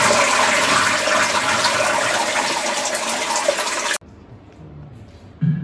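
Toilet flushing: a loud rush of water that cuts off abruptly about four seconds in. Quiet room sound follows, with a brief low knock near the end.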